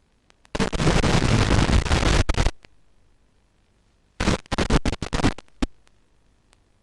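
Static from an analog 5.8 GHz FPV video receiver's audio channel, cutting in abruptly twice. The first burst lasts about two seconds, the second about a second and comes broken up, with short clicks in between. Static like this is typical of a weak, breaking-up video link.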